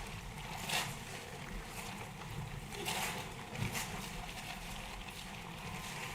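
Faint ambience of a large assembly hall: a steady low hiss and hum, with a few soft knocks and rustles, about a second in and again around three seconds in.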